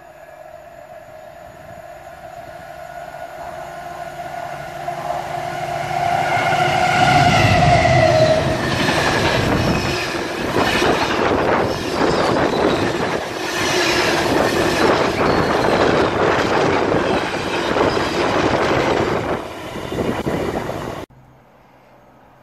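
A locomotive-hauled freight train of engineering wagons approaching and passing through at speed. The locomotive's tone builds and drops in pitch as it passes about seven to eight seconds in, then a long rake of wagons rumbles and clatters over the rails. The sound cuts off suddenly about 21 seconds in.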